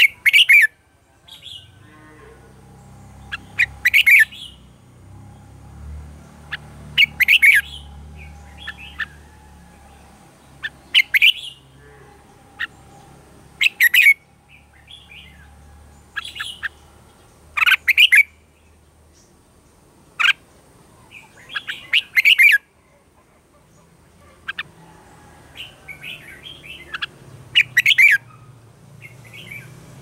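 Red-whiskered bulbul singing: short, loud, warbling phrases repeated about every three to four seconds, with softer chirps in between.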